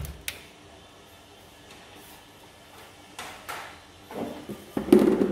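Grey plastic outer cover of a Canon LBP2900 laser printer being pushed onto the chassis and snapped into place: scattered plastic clicks and knocks, the loudest cluster near the end.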